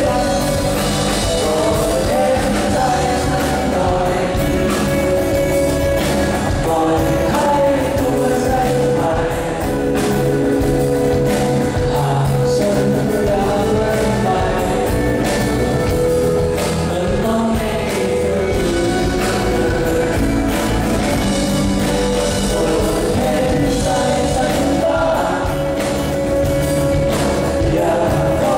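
Live rock band playing a song: a male voice singing over electric and acoustic guitars and a drum kit, continuous through the whole stretch.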